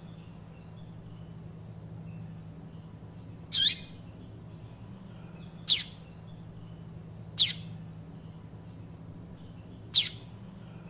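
Papa-capim seedeater calling: four short, high notes that sweep downward, about two seconds apart, the first some three and a half seconds in, over a faint steady low hum.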